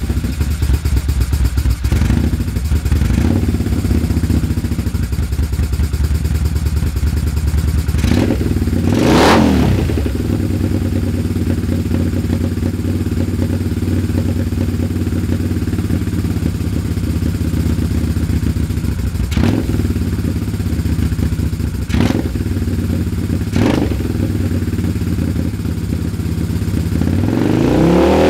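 Honda CX500 liquid-cooled V-twin motorcycle engine running at a poor idle, blipped several times, with the biggest rev about nine seconds in and another near the end. The owner puts the rough idle down to a misfire in the left cylinder.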